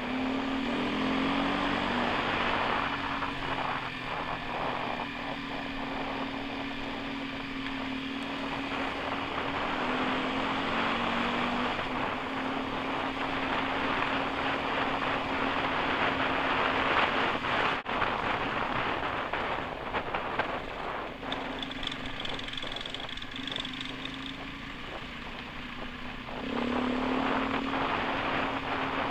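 Off-road motorcycle engine running steadily as the bike rides along a gravel dirt track, its pitch rising and falling a little with the throttle, under a constant rush of wind and tyre noise.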